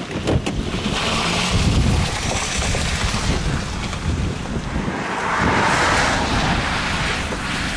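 Strong gusty wind buffeting the microphone, a rushing roar that swells twice.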